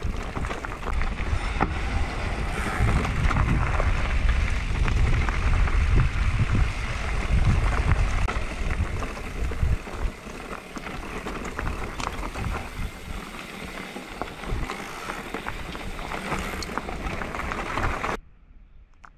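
Electric mountain bike riding fast on a dirt trail: wind buffeting the microphone and tyres running over loose ground, with scattered clicks and rattles. The noise drops away suddenly near the end.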